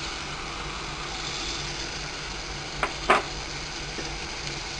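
Masala paste and tomato cooking in a clay pot on the stove, a low steady hiss with a faint hum. Two short knocks come close together about three seconds in.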